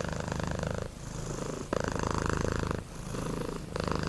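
Domestic cat purring, a steady low rumble going in phases of about a second each with brief breaks between breaths.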